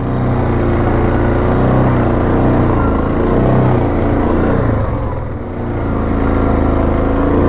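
Yamaha Grizzly 700 ATV's single-cylinder engine running as it rides along a trail, easing off briefly about five seconds in and then picking up again.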